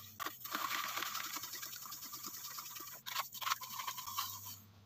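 Metal spoon stirring coarse rock salt into water in a plastic bowl, a steady scraping swish of undissolved salt grains, with a few light clicks of the spoon against the bowl near the start and about three seconds in. It fades out near the end.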